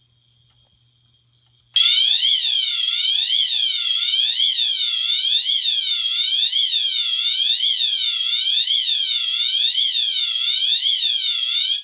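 Multitone fire alarm horn strobe sounding its siren tone: a really loud wail that sweeps down and up a little more than once a second. It starts about two seconds in and cuts off sharply ten seconds later, the ten-second on-phase of California code from the fire alarm panel.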